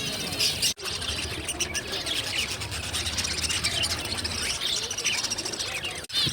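Many small cage birds chirping and twittering at once in a dense, overlapping chatter. The chatter breaks off briefly twice, once under a second in and once near the end.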